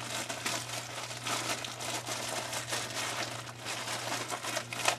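Clear plastic bag holding a t-shirt crinkling as it is handled, an irregular crackle, over a steady low hum.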